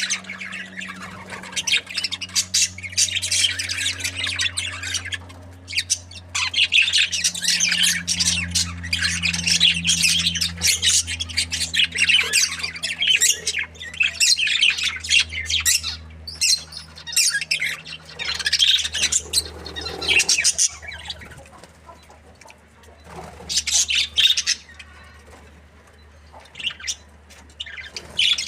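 A group of budgerigars chirping and chattering in dense bursts, thinning to scattered calls in the later seconds, over a steady low hum.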